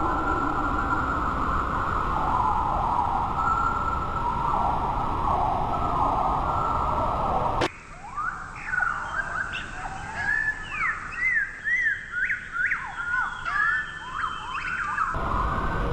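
A steady noisy sound with a wavering hum, then, after an abrupt cut about eight seconds in, a bird singing a rapid run of short whistled chirps that sweep up and down in pitch.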